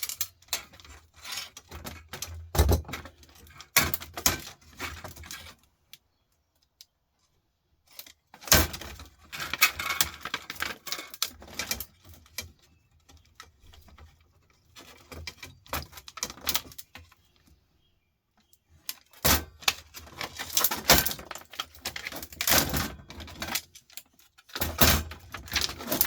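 Irregular clicks, knocks and clatter of small metal parts and hand tools being handled while a desktop computer power supply is taken apart, with two short pauses.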